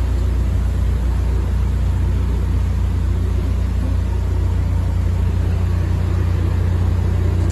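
Narrowboat engine idling with a steady low rumble.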